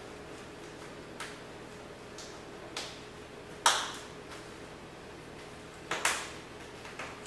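Sharp clicks and snaps from a nylon magazine pouch's snap-fastened straps being pressed into place on a plate carrier's MOLLE webbing. There are about five, spaced out; the loudest comes about halfway through and a quick pair follows near the end.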